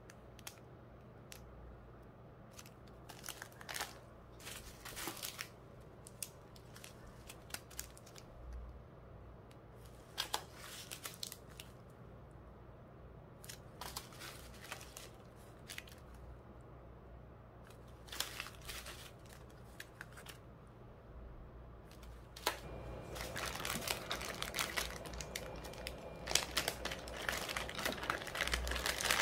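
Plastic packaging crinkling as small clear zip bags and bubble wrap are handled, in scattered short crackles at first, turning into denser, continuous crinkling about three-quarters of the way in.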